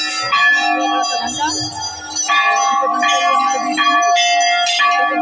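Hindu temple bells rung by devotees, struck again and again, so that several pitches clang and ring on over one another.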